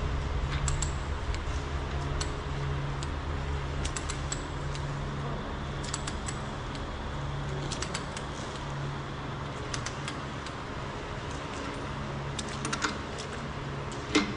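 Ratchet of a long-handled torque wrench with a 32 mm socket clicking as stud bolts on a pipe plug are tightened, in short clusters every second or two with a louder click near the end. A steady low hum pulses underneath.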